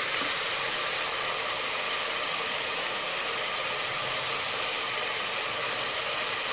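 Chicken and green-chilli masala sizzling with a steady hiss as it fries in an aluminium pot, cooked down until the oil separates.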